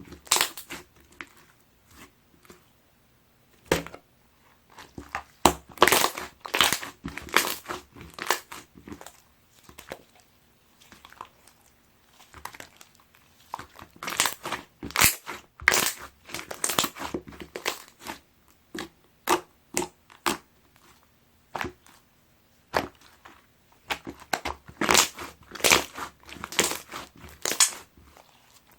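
Clear slime being squeezed and worked by hand, giving off quick runs of sharp clicks and pops from trapped air, with quieter pauses between the runs.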